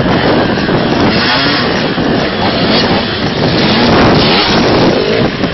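Dirt bike engines revving as the bikes ride through a muddy water crossing, with water splashing up around the wheels.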